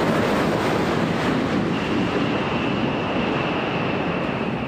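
Steady rushing noise of the Space Shuttle orbiter Endeavour rolling out on the runway just after main gear touchdown, mixed with wind on the microphone. A thin, steady high tone joins about two seconds in.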